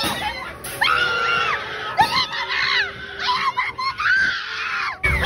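Several young people screaming in fright on a horror train ride: a run of overlapping high-pitched shrieks, several held for about a second.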